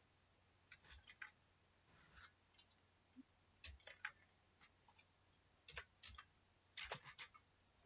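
Faint, irregular key clicks of a computer keyboard being typed on, some falling in quick little clusters.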